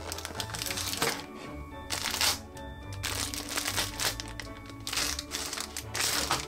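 Clear plastic packaging crinkling in several bursts as it is handled, over background music with steady held notes.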